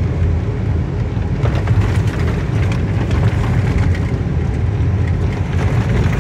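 Steady low rumble of a vehicle's engine and tyres heard from inside the cab while it drives along a rough dirt track, with a few light knocks from the bumpy ground.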